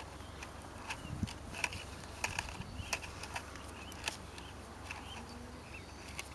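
Scattered small clicks and rustling from hands twisting the thin wires of an electric firework igniter together close to the microphone, over a steady low outdoor rumble.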